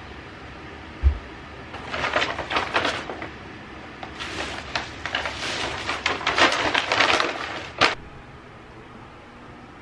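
A low thump as a plastic laundry basket is set down, then paper and plastic bags rustling and crinkling in bursts as they are picked up and handled, ending in a sharp click.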